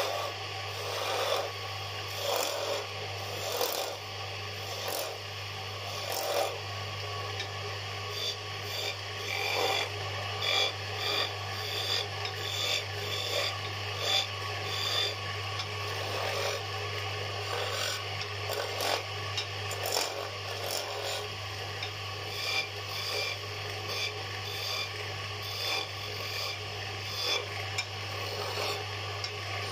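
Wood lathe turning a wooden spindle while a flat chisel cuts into it: a continuous rasping, scraping cut that swells and eases as the tool is pressed in and moved along. A steady low hum runs underneath.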